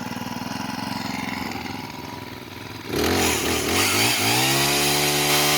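A Honda pole chainsaw's small four-stroke engine idles just after a choke-on start, then is throttled up about three seconds in. Its pitch climbs over about a second to a steady high speed as the chain spins.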